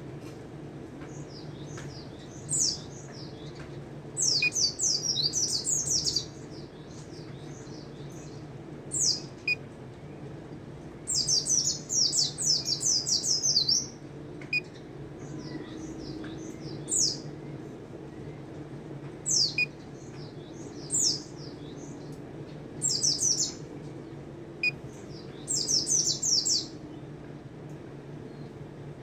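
Caged pleci (white-eye) singing in bursts of rapid high twittering: short single notes alternate with quick-fire runs of two to three seconds, a dozen or so phrases in all. A steady low hum lies underneath.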